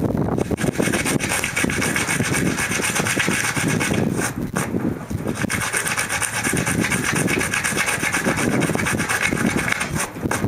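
Sandpaper rubbing back and forth over the dried skin side of a sheep pelt: rapid scratchy strokes, with a short break about halfway through. The pelt is rough and being smoothed down by sanding.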